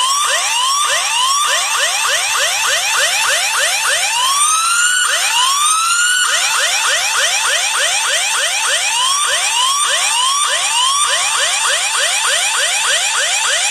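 Siren sound effect played at full volume through a OnePlus Nord smartphone's speaker: quick rising sweeps about three a second, broken about four to six seconds in by a couple of slower, longer rising sweeps.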